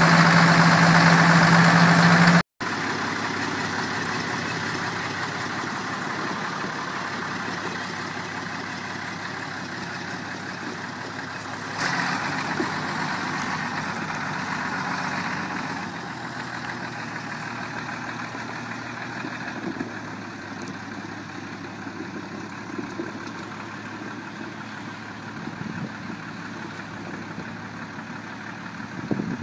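Ford 7840 tractor's diesel engine running steadily, loud and close at first, then after a sudden drop heard from farther off as the tractor moves around the yard. The engine note swells briefly near the middle and then slowly fades.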